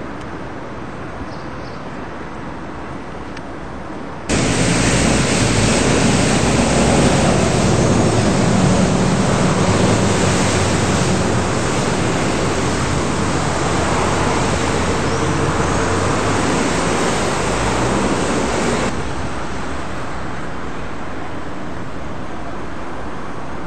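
Street traffic noise from passing cars. About four seconds in it jumps suddenly to a much louder, even rushing noise that cuts off just as abruptly some fifteen seconds later.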